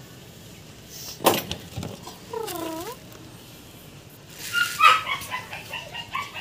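A dog whining with short yelps, a pitched call that dips and rises, plus a sharp knock about a second in.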